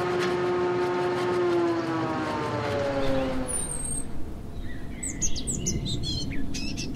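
Logo intro sound effect: a tone with several overtones fades in and slowly falls in pitch, then quick, high bird-like chirps sound over the last few seconds.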